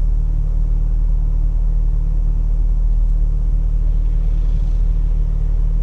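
Steady low rumble inside a car's cabin as the car idles and creeps along slowly.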